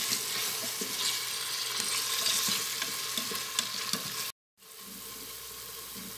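Chopped onion, tomato and garlic sizzling in oil in an electric pressure cooker's inner pot, with the clicks and scrapes of a spoon stirring them. The sound cuts out for a moment a little past four seconds, then the sizzling continues more quietly.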